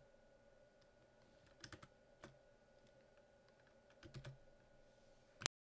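A few faint computer keyboard keystrokes in small groups over a low steady hum, then one sharp click about five and a half seconds in, after which the sound cuts off to dead silence.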